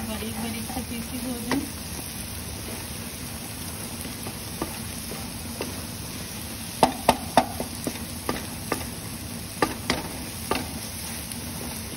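Scrambled eggs sizzling steadily in oil in a kadhai (wok), with a spatula scraping and tapping against the pan as the eggs are stirred and broken up. There is a quick run of taps about seven seconds in, and more near ten seconds.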